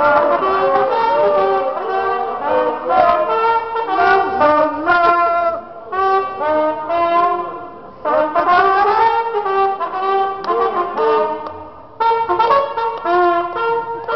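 A trumpet playing a melody live, phrase after phrase, with short breaths between phrases.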